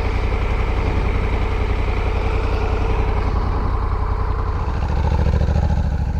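Motorcycle engine running steadily at idle. Its low note shifts and grows a little about four and a half seconds in.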